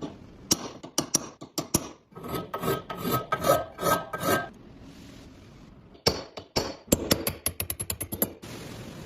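Hand-tool work: a few sharp clicks, then about five rasping, scraping strokes with a faint ring. After a pause comes a quickening run of clicks and taps.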